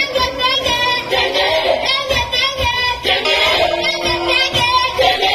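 Music: a high singing voice with wavering, ornamented notes over instrumental accompaniment.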